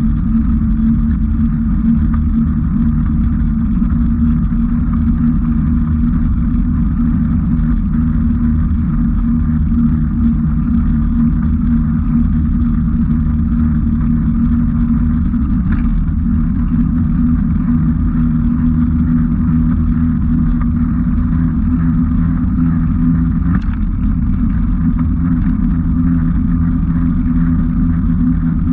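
Steady low drone and rumble from riding along a paved track, with no change in pace or pitch.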